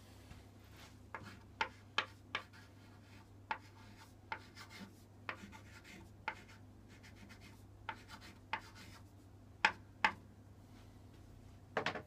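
Chalk writing on the blackboard-painted front panel of an upright piano: scattered sharp taps with short scratchy strokes between them, the loudest two a little before the end.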